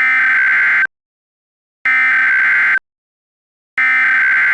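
Emergency Alert System SAME header data bursts: three loud digital warbling screeches, each just under a second long with about a second of silence between them. This is the encoded header that opens an EAS alert.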